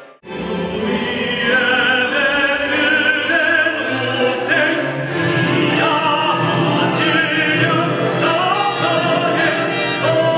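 Operatic singing with orchestra: massed voices of a chorus sing a slow, solemn invocation in Mari, with held notes and vibrato over sustained orchestral accompaniment. The music comes in abruptly just after the start.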